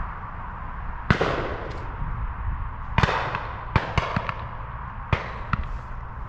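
Shotgun shots fired at driven pheasants: a string of sharp reports, some loud and some fainter, the loudest about a second in and three seconds in, with more following irregularly.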